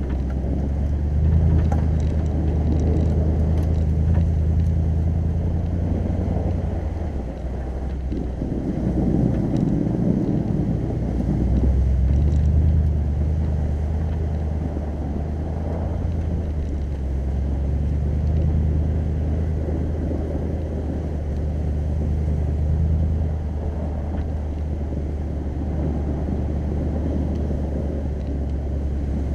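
Lexus GX 470's 4.7-litre V8 running at slow trail speed, a steady low hum with tyres rolling over packed snow. About seven seconds in the hum fades under a rougher rumble for a few seconds, then settles back.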